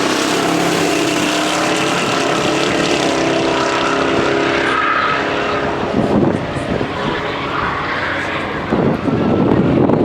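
Car engine running hard at high revs. About six seconds in, the steady engine note gives way to a rougher, noisier sound.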